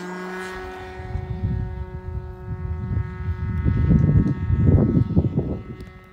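An OS 75AX two-stroke glow (nitro) engine on a model airplane runs at a steady, even pitch as the plane climbs out after takeoff, its drone slowly fading with distance. From about a second in, gusts of wind buffet the microphone with a loud, uneven low rumble that swamps the engine in the middle and dies away near the end.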